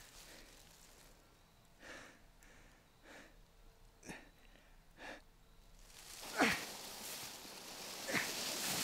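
Dry fallen leaves rustling and crunching in short strokes about a second apart, then louder and more continuous near the end, with two sharp crunches.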